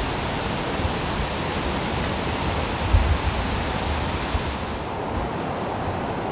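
Wind blowing through the woods as a steady rushing hiss, with low thumps of wind buffeting the microphone, one plain one about three seconds in; the hiss eases a little past the middle.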